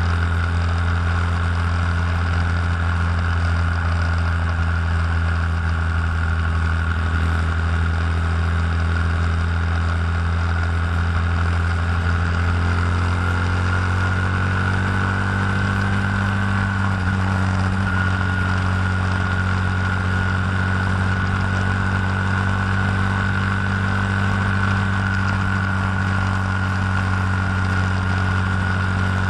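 Honda Grom's 125 cc single-cylinder engine running at a steady road cruise, with wind rush over the bike. The engine note rises slightly about halfway through.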